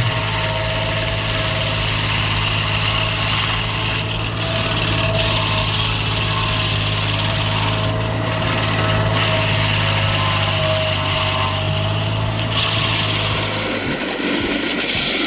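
Stump grinder's engine running steadily with a constant low hum, under a hiss that swells and dips every few seconds as it works; the engine hum drops away about 14 seconds in.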